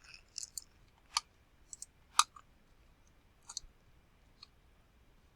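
Computer mouse buttons clicking, about eight short, irregularly spaced clicks, the loudest just after two seconds in, as a component is picked and placed in a CAD program.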